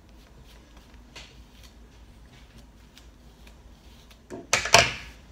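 Wide-tooth comb drawn through detangled hair, giving faint scratchy rustling strokes. About four and a half seconds in there is a short, loud rush of noise.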